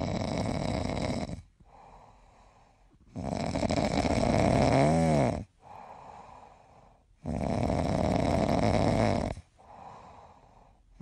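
Sleeping puppy snoring: three long, loud snoring breaths about two seconds each, with fainter breaths in between.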